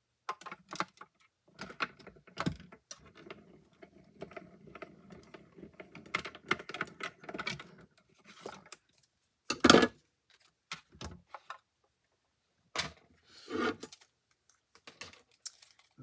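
Hand-cranked manual die-cutting machine rolling a stack of clear cutting plates through its rollers: a rough, grinding rumble for about seven seconds. This is followed by a few sharp plastic clacks as the plates are pulled out and handled, the loudest about ten seconds in.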